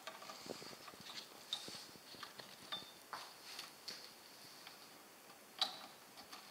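Faint clicks and rustles of small plastic wire connectors and cables being handled and pushed onto a circuit board's pin headers, with one sharper click about five and a half seconds in.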